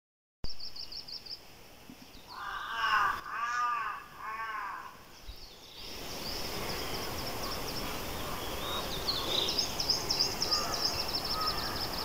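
A crow caws three times, among the chirping of small birds in a conifer forest at dawn. After about six seconds a steady background hiss comes up, with a busy chorus of high bird chirps over it.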